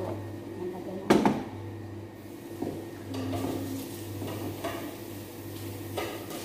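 Metal pots and a steel bowl clanking as they are handled on a stovetop. One loud clank comes about a second in, followed by a few lighter knocks.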